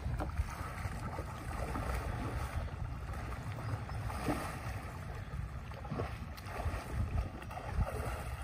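Wind buffeting the microphone over open water, with a few brief splashes as dolphins surface and thrash in the water, one about four seconds in.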